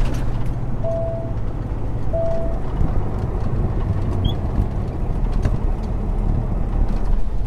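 Peterbilt 389's Cummins ISX15 diesel running under way, heard from inside the cab as a steady low drone over road noise. Two short beeps sound about a second apart near the start.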